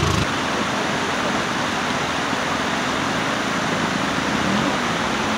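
Steady rush of a shallow, rocky woodland stream. A motorcycle engine cuts off right at the start, and another is just audible under the water near the end.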